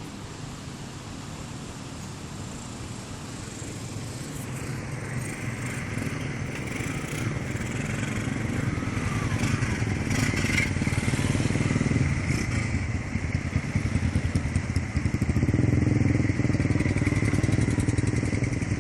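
Motorcycle engines running, growing steadily louder over the first dozen seconds and then staying loud.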